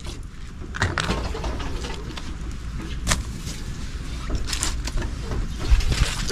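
Wood fire of twigs and dry leaves burning in an open stone hearth, giving a few sharp crackles over a steady low rumble.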